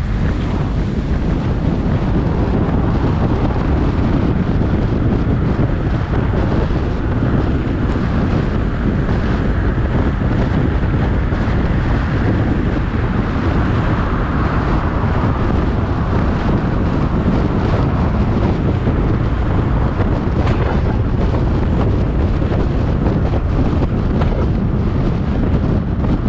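Steady wind rush buffeting the microphone of a camera riding on a moving car, with road noise underneath.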